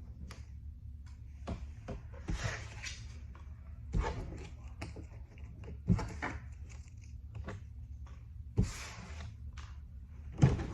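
Toys and packaging being handled and put away: a few short rustles of plastic or paper and occasional light knocks, over a low room hum.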